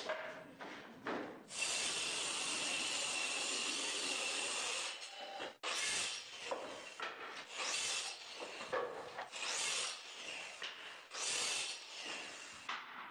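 Electric palm sander running on wooden board, sanding it: a steady rubbing hiss for a few seconds, a sudden stop about five and a half seconds in, then shorter uneven stretches of sanding.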